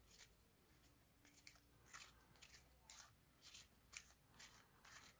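Faint grating of a small aluminium UV flashlight's threaded tail cap being unscrewed by hand, in a series of short scraping strokes about two a second.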